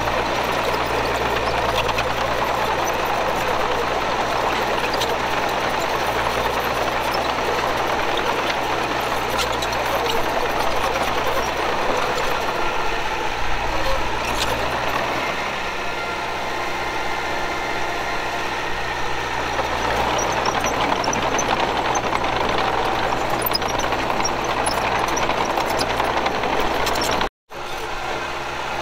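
Diesel engine of heavy earthmoving machinery running steadily under work, with a rough mechanical clatter, broken once near the end by a split-second gap.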